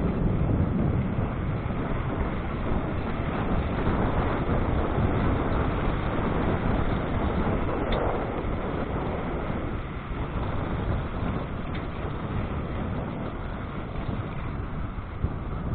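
Steady rushing road and wind noise of travel along a street, heaviest in the low rumble and easing slightly about two-thirds of the way through.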